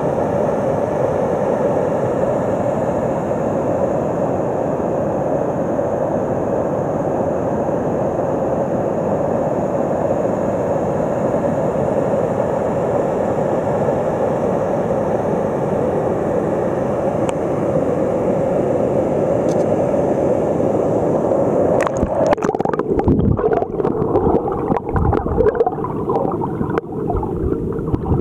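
Water spilling over a low dam into churning whitewater, a steady rushing. About 22 seconds in the sound turns muffled and heard from underwater, with gurgling and irregular low thumps.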